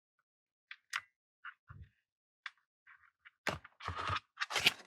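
Light clicks and taps of small parts being handled and fitted into an opened jigsaw's housing. They start out scattered and turn into a denser clatter in the last second and a half.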